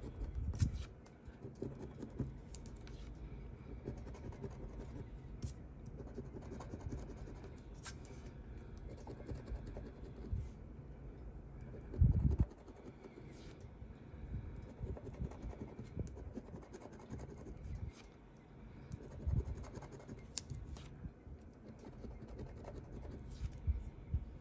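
Scratch-off lottery ticket being scratched, short irregular scraping strokes rubbing off the coating. A louder thud comes about halfway through, and another near the end.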